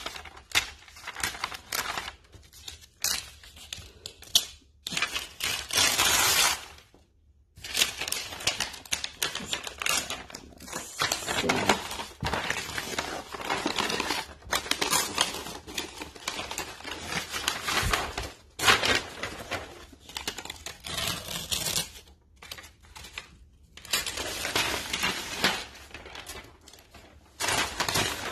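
Brown paper backing being peeled off a self-adhesive wall decal, crinkling and rustling in repeated bursts with a couple of short pauses.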